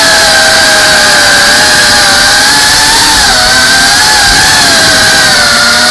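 CineLog35 cinewhoop's brushless motors and ducted propellers whining loudly, heard from the camera mounted on the drone. Several tones rise and dip together as the throttle changes through the turns.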